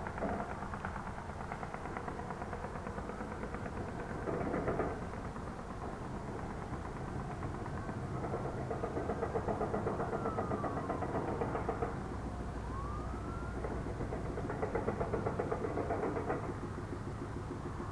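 A continuous rapid pulsing banging rumble, the unexplained noise going on for hours. A distant siren rises and falls faintly about halfway through.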